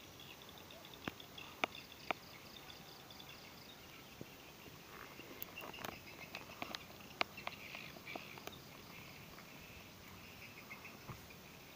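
Faint outdoor chirping of insects and birds, with a handful of short sharp clicks and taps scattered through it. The drill motor is not running.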